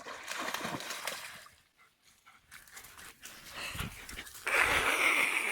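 German shepherd splashing through shallow pond water, with a louder stretch of splashing near the end.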